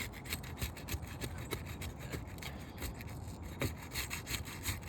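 Rapid, repeated scraping and rubbing as a tool is worked under roof shingles to break their seal and lift them. The shingles are ripping through as they come up, a sign that they cannot be lifted and reused.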